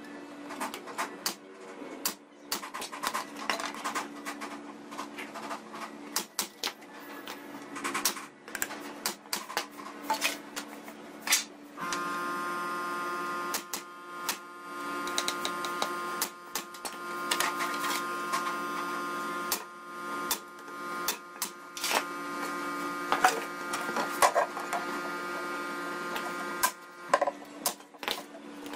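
Pneumatic brad nailer firing nails into wooden boards: repeated sharp shots mixed with knocks of boards being set down and positioned. A steady hum joins in about twelve seconds in and stops shortly before the end.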